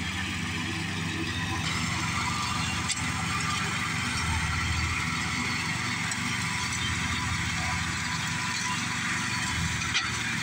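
Riding lawn mower's engine running steadily under load while its blades cut dry, overgrown grass: a constant engine drone with a rushing hiss over it. The hiss grows louder a couple of seconds in.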